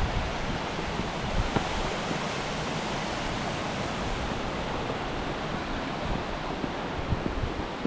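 Steady rush of falling and flowing water from a large waterfall and its stream, with wind buffeting the microphone as low, uneven rumbles.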